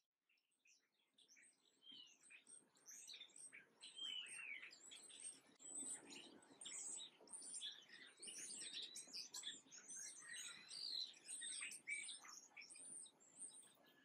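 Small songbirds chirping and twittering in a dense, overlapping chatter of many short calls and trills. It rises out of silence over the first two seconds.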